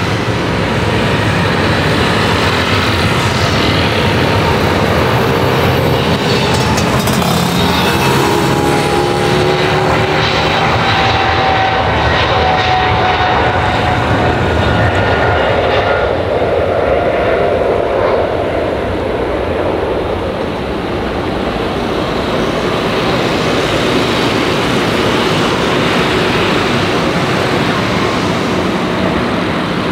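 Boeing 777-300ER's twin GE90 turbofan engines at takeoff power, a loud, steady jet noise through the takeoff roll and climb-out. Engine whine tones fall in pitch in the first half as the aircraft passes by.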